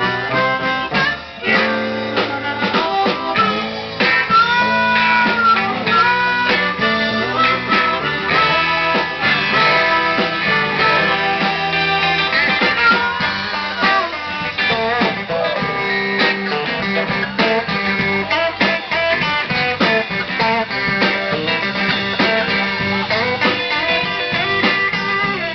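Live blues band music: a Telecaster-style electric guitar and a harmonica played into the vocal microphone, with an acoustic guitar alongside.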